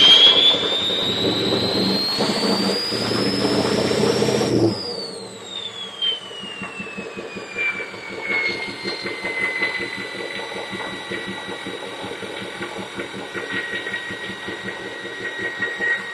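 2004 Ford F-350's 6.0L Power Stroke V8 turbo diesel through a 5-inch straight-back exhaust, revved with a loud turbo whistle rising in pitch. After about four and a half seconds the throttle is let off, and the whistle slowly falls away as the turbo spools down while the engine settles back to a pulsing idle.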